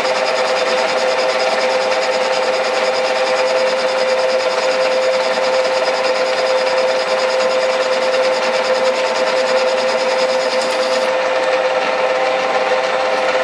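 Metal lathe running at a steady speed, the chuck spinning with a steady whine over the drive's mechanical noise.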